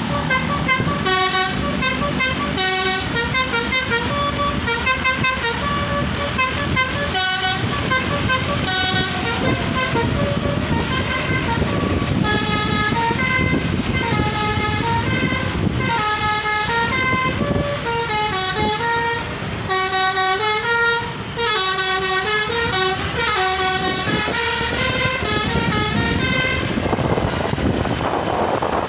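Tour bus 'telolet' musical air horn playing quick runs of stepped notes, melody after melody, over the bus's engine and road rumble. Near the end the horn stops and only a rushing wind and road noise is left.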